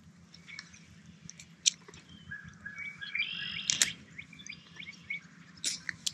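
Small songbirds chirping and singing, with short whistled notes scattered throughout. A few sharp clicks cut in, about two, four and six seconds in.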